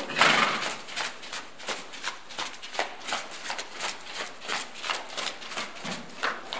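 A horse's hooves thudding softly on sand arena footing at a canter, a steady run of muffled beats, about three a second.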